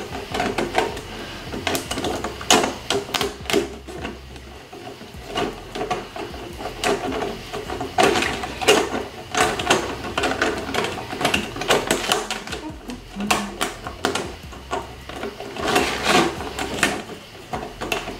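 Thin plastic panels of a stackable shoe box clicking, knocking and rattling as a white-framed panel is pushed and forced into the grooves of the box, a tight fit. The clicks and knocks come irregularly, several a second at times.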